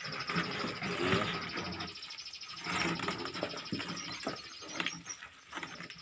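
A mass of feeder crickets chirping together: a steady, high trill of fast, even pulses. Under it are irregular rustles, louder about a second in and again near three seconds, from the crickets crawling over egg-tray cartons and plastic.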